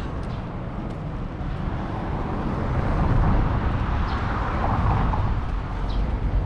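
A car passing, its road noise swelling about two seconds in and easing off near the end, over a steady low outdoor rumble.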